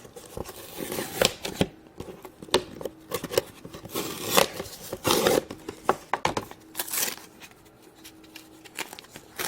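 Hands handling toy packaging: a run of irregular crinkles, rustles and tearing of card and plastic as the play money is taken out of the back of the box.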